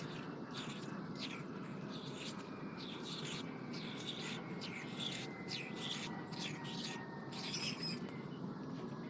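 Faint, irregular scratching and rubbing strokes, as of hand work on a metal vise part, over a steady low hiss.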